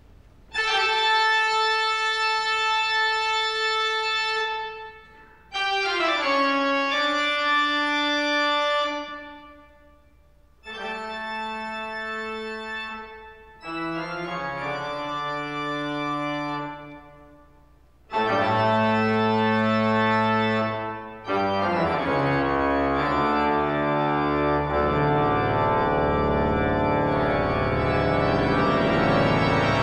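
Background music of slow, long-held chords in separate phrases with short gaps, becoming unbroken and fuller a little past two-thirds of the way through.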